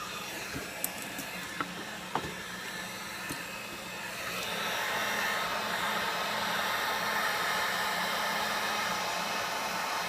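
Hot-air heat gun blowing steadily to soften the adhesive holding a Galaxy S5's front screen assembly, with a few small handling clicks early on. It gets louder about four seconds in.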